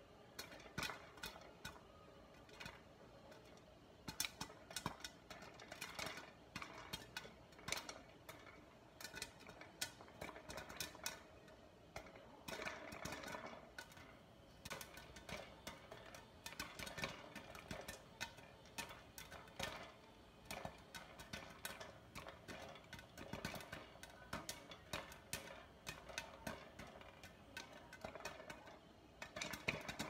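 Popcorn kernels popping dry, with no oil, in a frying pan under a glass lid on a gas burner: a steady stream of sharp, irregular pops.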